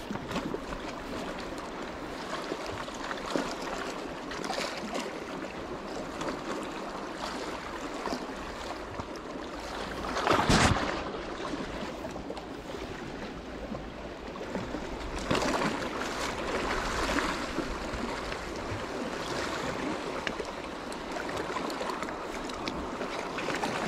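Sea water washing and sloshing against the rocks at the water's edge, a steady wash with a louder surge about ten seconds in and another swell around fifteen seconds.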